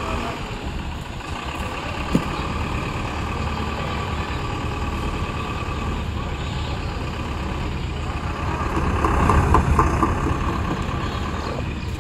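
Truck engines running steadily, with a short sharp knock about two seconds in and a swell of engine noise a little past the middle.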